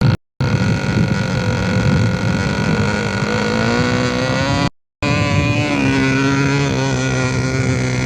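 Diesel switcher locomotive engine running, its pitch rising slowly as it revs up. The sound breaks off abruptly twice for a moment.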